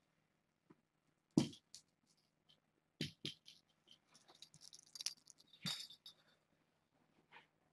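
Kitten playing at a round cardboard scratcher toy: scattered knocks and clicks, the loudest about a second and a half in, and a stretch of scratchy rustling in the middle.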